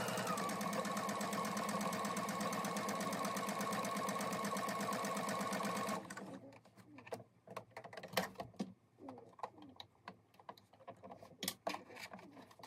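Electric sewing machine stitching fabric at a steady fast speed, then stopping suddenly about six seconds in. Scattered clicks and rustles of handling follow.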